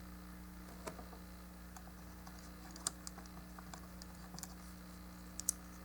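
Sparse, faint clicks and taps of hard plastic model kit parts being handled and clipped together, a handful spread over several seconds, over a low steady electrical hum.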